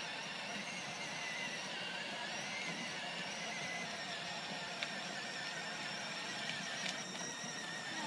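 Children's battery-powered ride-on toy cars driving, their small electric motors and gearboxes whining steadily with a slight waver in pitch.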